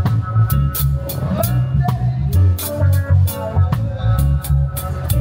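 Live band playing with electric bass guitar and drum kit keeping a steady, driving beat.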